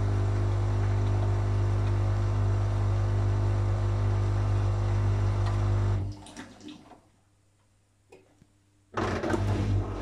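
Whirlpool FL 5065 front-loading washing machine in an unbalanced 400 rpm spin: a steady motor hum with water noise, which cuts off suddenly about six seconds in. After about two seconds of near silence, water gushes from the drain hose into a bucket with a hum, starting suddenly about nine seconds in.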